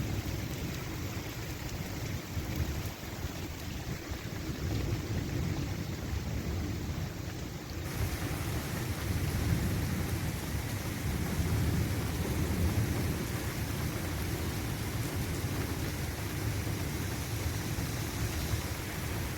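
Severe thunderstorm's continuous low roar overhead, a steady rumbling rush with a hiss of rain or wind above it; about eight seconds in, the hiss suddenly turns brighter. The observer wonders whether the roar is continuous thunder, though no flashes are seen, or something happening high up in the atmosphere.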